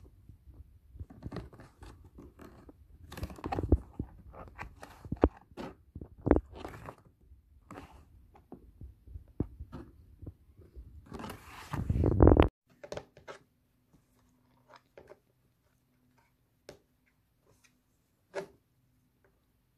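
Irregular rustling, scraping and crunching handling noises, with a loud burst of rustling about eleven to twelve seconds in. After that it is mostly quiet, with a faint low hum and a few scattered ticks.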